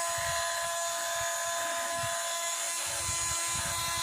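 Parkside cordless multi-tool motor running on at full speed with a steady high whine, stuck on: it won't switch off and its speed can't be changed.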